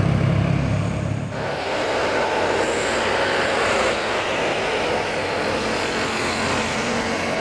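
Road traffic going by: a heavy vehicle's engine drones low for about a second, then after an abrupt cut comes a steady rush of passing-traffic noise.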